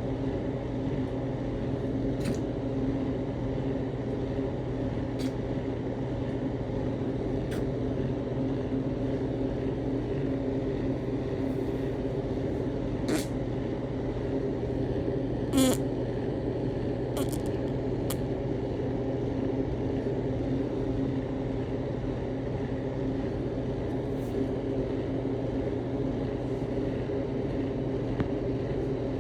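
A steady low mechanical hum, with a few faint clicks and one short, louder sound about halfway through.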